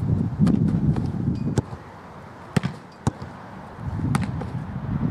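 Sharp thuds of a soccer ball being struck during shot-stopping practice, three in the middle of the clip, the last two close together. A low rumbling noise fades out before them and comes back near the end.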